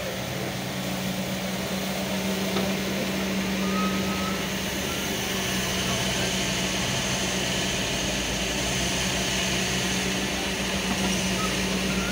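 Kobelco SK200 hydraulic excavator's diesel engine running steadily under load as the machine digs and swings. The low engine note grows a little fuller about two-thirds of the way in.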